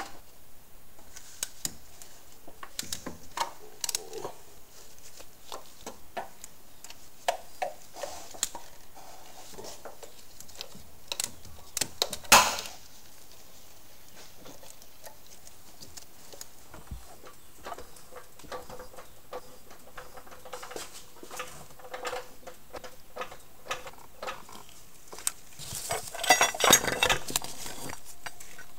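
Hand tools clinking and tapping on metal in a car's engine bay while the engine support bracket is unbolted: scattered light clicks, one louder clank about twelve seconds in, and a quick run of clinking near the end.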